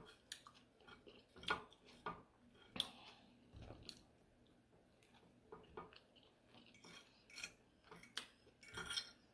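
Cutlery clinking and scraping against a plate during a meal: faint, scattered short clicks and knocks about every half second to second.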